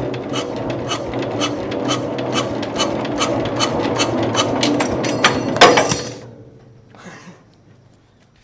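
Diesel engine being cranked without catching, with a regular knock about three times a second over a steady hum. It ends with one loud clunk about five and a half seconds in and winds down to near silence.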